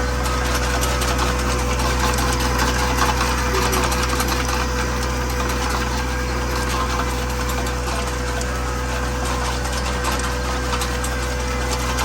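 Four-wheel-drive vehicle's engine running steadily, with a steady whine held over it.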